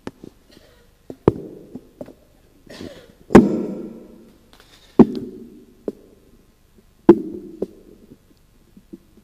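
Microphone knocked and handled while it is cutting out: a string of sharp knocks, four of them loud, each followed by a short low ring that dies away.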